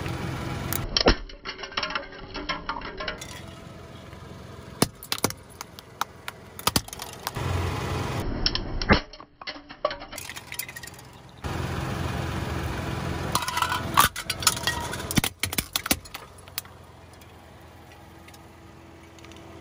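Car tyre rolling over plastic bottles filled with small beads: the plastic cracks in a series of sharp snaps, and the beads scatter and click across the asphalt. A low car rumble sits under several of the crushes. The sound settles to a steady low hum near the end.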